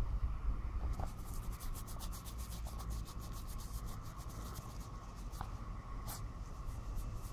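A small puppy's front paws scratching fast in dry sand as it digs a hole. There are about eight strokes a second for some three seconds, then a few scattered scrapes.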